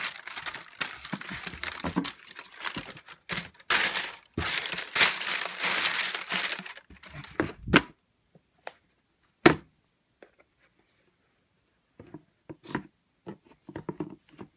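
Shoebox tissue paper crinkling and rustling as a pair of sneakers is lifted out of the box, in two long stretches. Then two sharp knocks about two seconds apart, the second the loudest, and a few faint handling sounds.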